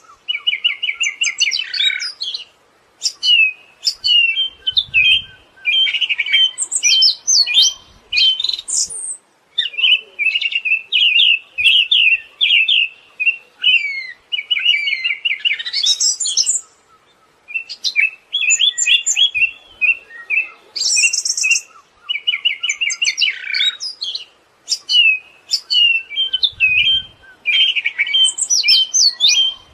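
Siberian thrush singing: rapid, varied twittering phrases with some high, thin notes, repeated with short pauses between them.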